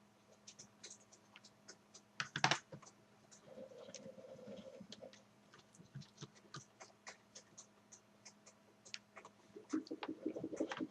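Small scattered clicks and scrapes of a screwdriver working the screws out of an HP DV6000 laptop's plastic bottom case, with a louder clatter about two and a half seconds in and a fast run of clicks near the end.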